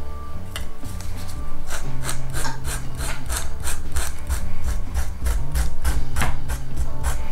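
NT Dresser hand file rasping the rough cut edge of a leather piece in quick back-and-forth strokes, about four a second, coming thickest from about two seconds in: the edge is being shaved smooth.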